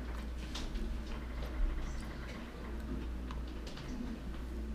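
A person chewing an Oreo sandwich cookie with the mouth closed: soft, irregular crunches and mouth clicks.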